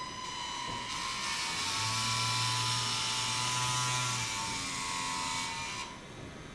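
Small electric propeller motors of a robotic blimp whirring up close. The whir swells about a second in, a low hum joins in the middle, and it cuts off sharply near the end.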